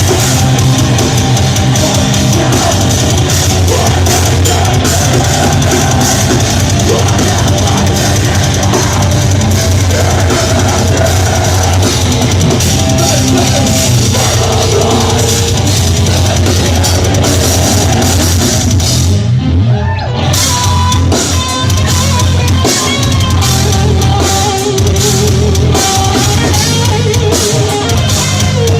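Death metal band playing live: loud, dense music with pounding drums and a heavy low end. About two-thirds of the way in, the cymbals and top end cut out for about a second before the full band comes back in.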